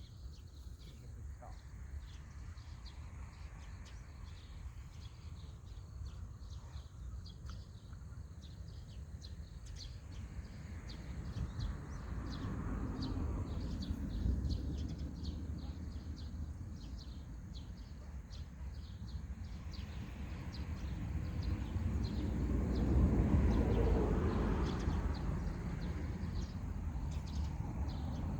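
Outdoor rural ambience: small birds chirping in quick short calls over a low rumble that swells about halfway through and again in the last third.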